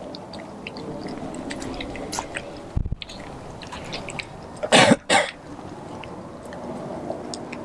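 A dog chewing raw turkey, with a run of small wet clicks and crunches. Just before the middle comes a dull low thump. A little after the middle come two loud, sharp cough-like bursts close together.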